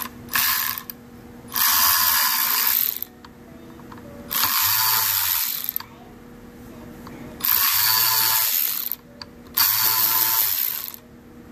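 Cordless electric ratchet running in short bursts, about five in all, four of them lasting about a second and a half each. It is backing out the small T10 Torx screws on a fuel injector control module's circuit board.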